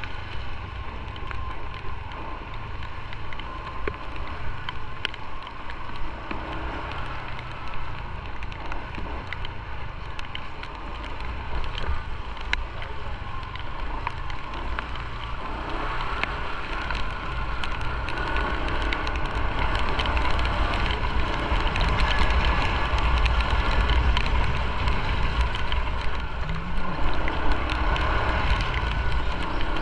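Motorcycle riding slowly through wet streets in the rain: a low engine rumble with wind on the microphone and tyre hiss off the wet road, and raindrops ticking on the camera. The rumble and wind grow louder about halfway through as the bike picks up a little speed.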